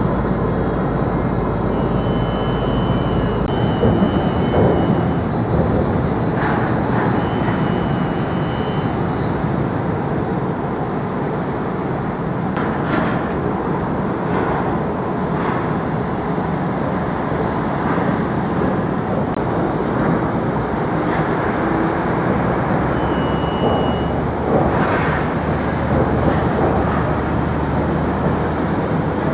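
Steady vehicle rumble and running noise, with a few short high-pitched beeps.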